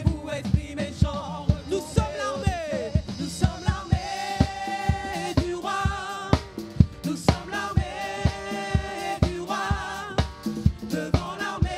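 Live gospel praise music: a small vocal group singing over an electric bass and a drum kit with a steady, quick beat.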